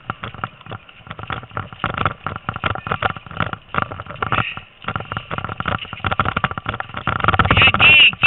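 Bicycle rattling and jolting over a rough dirt trail while dogs pull it, heard as a dense, irregular clatter of knocks and clicks. It grows louder about seven seconds in, with a few short high squeals near the end.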